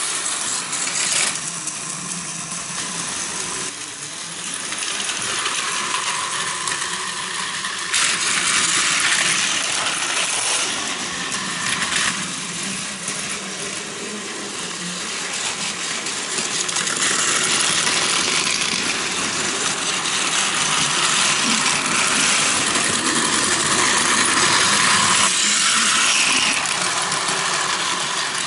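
Battery-powered Plarail toy Shinkansen trains running on plastic track: a steady, high rattling clatter of small motors, gears and plastic wheels. It swells and fades as the trains come near and move away, with a few sharp clicks.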